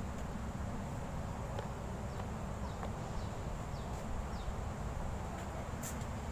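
Outdoor garden ambience: a steady low rumble of wind on the microphone, a faint steady high-pitched insect buzz, and a bird giving a string of about five short falling chirps a couple of seconds in.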